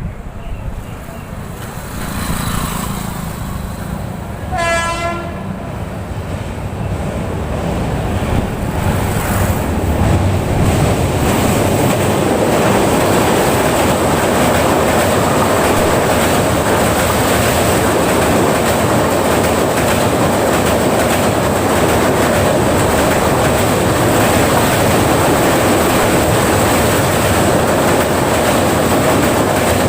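Avadh Express hauled by a WAP-7 electric locomotive: one horn blast lasting about a second, roughly four seconds in. Then comes the loud, steady rumble and clatter of the train running at speed over a steel bridge, building from about eight seconds in.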